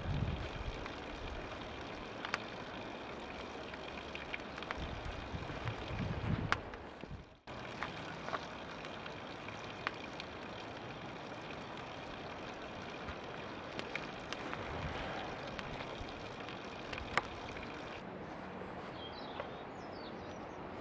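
Wind buffeting the microphone in gusts near the start and about six seconds in, over steady outdoor noise, with faint scattered crackles from a wood fire heating a steel brush cutter blade.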